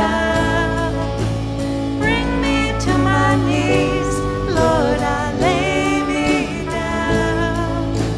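Church worship music: a band holding sustained low notes while a singer's voice glides over them.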